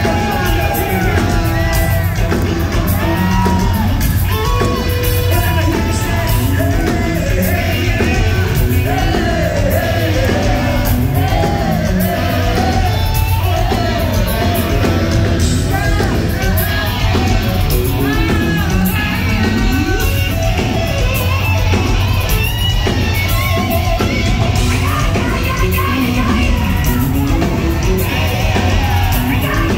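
A hard rock band playing live, with distorted electric guitars, bass and drums under a male lead vocal that sings and yells. It is loud and continuous, with a heavy, booming low end, as heard from within the crowd in a large hall.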